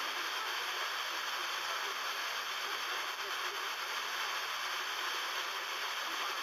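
FM radio receiver tuned to 103.6 MHz giving a steady hiss, with faint traces of station audio mixed in. Meteor-scatter reflections are bringing in many distant European stations at once on the channel, which gives mostly noise.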